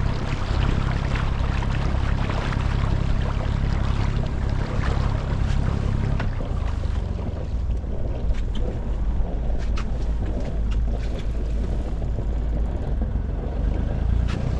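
Sailing yacht's inboard Volvo Penta diesel running steadily while motoring at low speed, its low drone changing about six seconds in. A few light clicks come in the second half.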